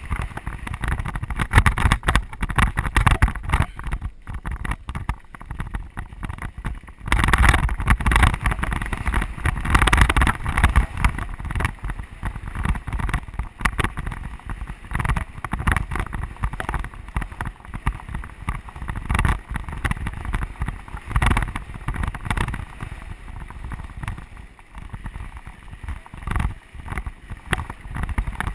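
Mountain bike rolling fast over a rough dirt singletrack: wind buffeting the camera microphone with a low rumble, and a constant irregular rattle and clatter as the tyres and frame take the bumps.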